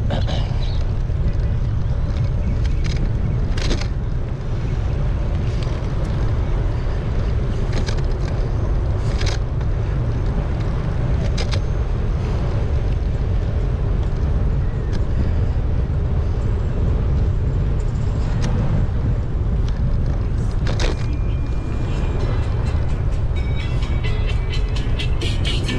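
Steady low rumble of wind buffeting an action camera's microphone on a moving bike, with a sharp click or rattle every few seconds. Near the end, music begins to come in.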